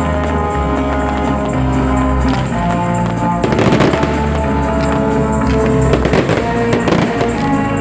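Fireworks display with music playing throughout; from about half a second before the middle, rapid crackling and popping fireworks burst over the music, with another flurry of crackles near the end.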